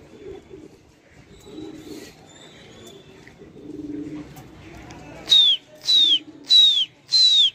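Pigeons cooing softly. About five seconds in comes a run of loud, sharp falling whistles, nearly two a second: a pigeon flyer whistling to drive the birds up.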